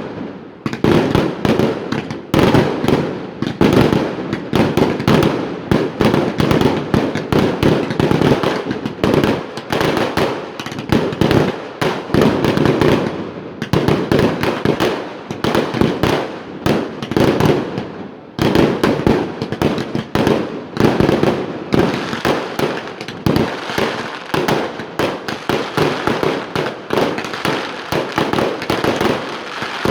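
Fireworks display: shells bursting in a dense, continuous barrage of loud bangs, one after another with hardly a pause.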